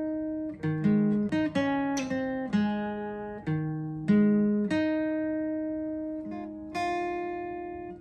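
Solo dreadnought acoustic guitar playing the intro: picked notes and chords struck every half second or so, each ringing on and fading before the next.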